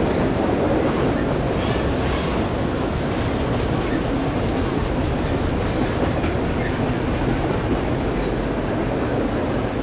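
CSX unit autorack freight train rolling past, a steady rumble of steel wheels on the rails.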